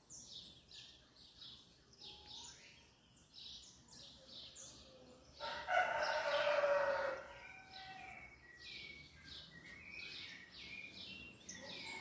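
Small birds chirping in quick repeated short calls, with a rooster crowing once, louder, about halfway through.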